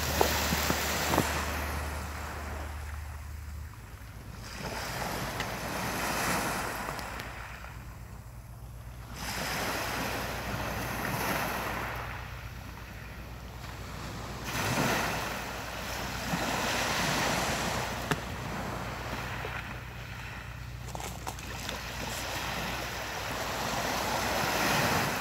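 Sea waves breaking and washing up the shore, swelling and fading in surges about every four to five seconds.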